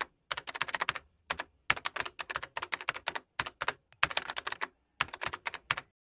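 Computer keyboard typing sound effect: quick runs of key clicks in short bursts separated by brief pauses, stopping shortly before the end.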